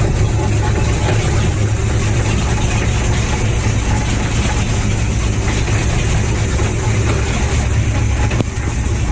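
Twin 350 V8 inboard boat engines running steadily, with the loud noise of a worn, lagging transmission.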